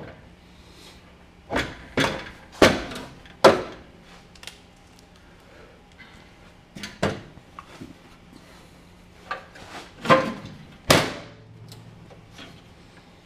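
Sharp knocks and clanks of a steel inner fender panel being worked loose from the car body, several single hits with a short ring. The loudest comes about three and a half seconds in, with quieter gaps between the hits.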